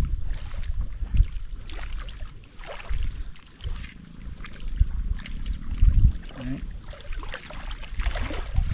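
Wind gusting on the microphone in irregular low rumbling buffets, over the wash of choppy waves lapping on the reservoir.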